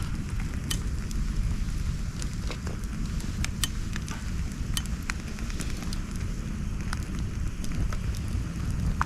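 Wood campfire burning, with sharp crackles and pops at irregular moments over a steady low rumble.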